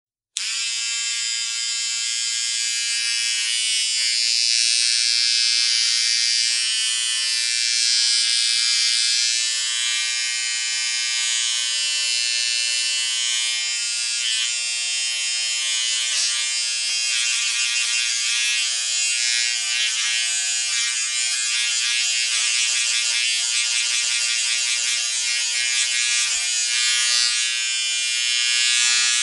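Portable electric shaver switching on abruptly and running with a steady, high-pitched buzz, which turns rougher and more uneven about halfway through.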